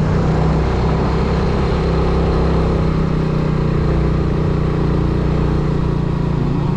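Motorcycle engine running steadily at low cruising speed, heard from the rider's seat, with wind and road noise.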